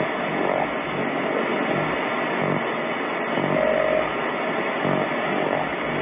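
Radio receiver audio from a software-defined radio tuned to the QO-100 (Oscar 100) satellite's narrowband transponder: a steady hiss with a faint raspy signal in it. This is a pirate transmission that paints the words "PIRATE RADIO" into the waterfall display. Faint low buzzy pulses come about once a second, and a short steady tone sounds near the middle.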